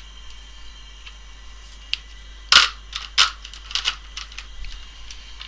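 A few short, sharp clicks and taps in the second half, the loudest about two and a half and three seconds in: a marker pen and small tools being handled and set down on a phone-repair bench.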